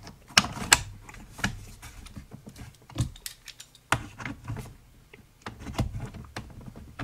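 Irregular clicks, taps and light knocks from handling a bathroom scale's metal frame and parts and a precision screwdriver while working the scale open.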